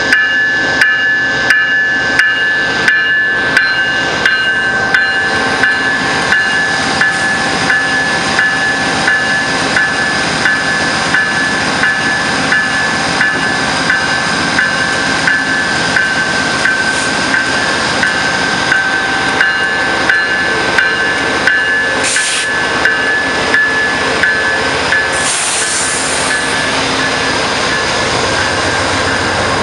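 A railway warning bell dinging steadily, about three strikes every two seconds, over the rolling noise of a passing passenger train. Two short air hisses come about two thirds of the way through, and near the end the low rumble of the train's GE Genesis diesel locomotive comes in.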